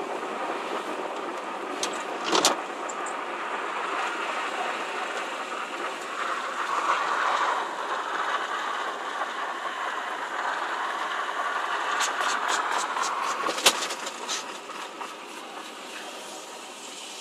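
Perodua Myvi driving and accelerating, with steady engine and road noise. A few sharp clicks and a quick run of rattling clicks about twelve seconds in: the rattle that comes on under acceleration, especially at low rpm or when climbing a hill.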